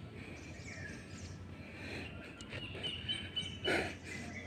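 Birds chirping over a steady low outdoor background, with one short, louder sound a little before the end.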